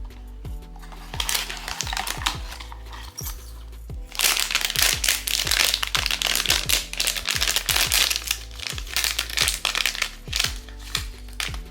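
Plastic blind-box packaging being crinkled and opened by hand, a dense rustling that grows loud about four seconds in, over background music.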